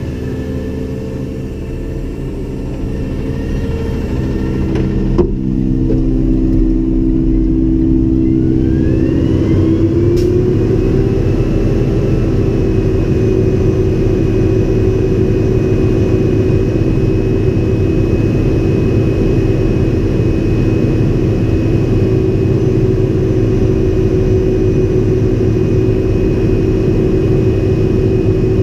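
Natural-gas engine of a Freightliner M2 sideloader garbage truck running, with one sharp click about five seconds in. The engine speed rises about nine seconds in and then holds steady at the higher pitch.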